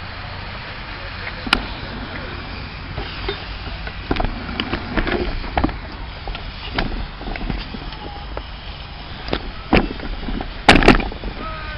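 Miniature steam railway sounds: irregular sharp clicks and knocks over a steady low rumble, with a cluster of louder knocks near the end.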